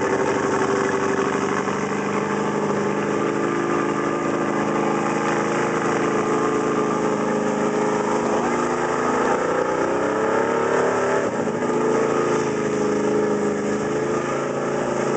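Dodge mud truck's engine running hard under load, its pitch rising and falling with the throttle about two-thirds through, as the spinning tires churn through mud and water.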